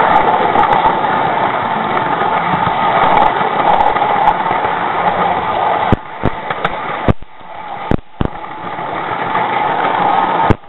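0 gauge model train running on track, heard from on board: a steady mechanical running noise from its motor and wheels. About six seconds in the noise drops away, leaving sharp clicks, often in pairs, as the wheels cross rail joints.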